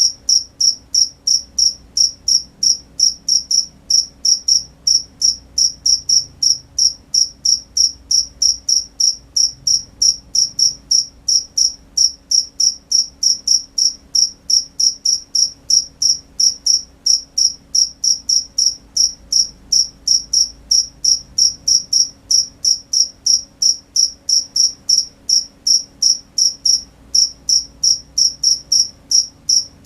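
A cricket chirping in a steady, even rhythm of high chirps, about two and a half a second, with a faint low hum underneath.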